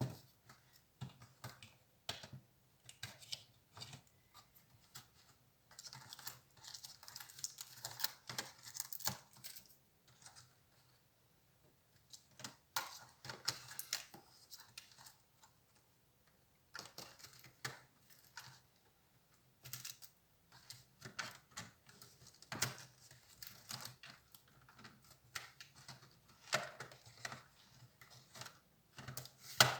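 HP Compaq 6910p laptop being taken apart by hand: an irregular run of small plastic clicks, taps and scrapes as its casing and parts are handled, with a couple of short pauses.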